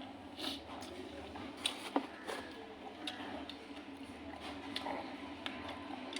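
Close-up eating sounds: scattered small wet clicks and smacks of chewing, with two sharper clicks about two seconds in.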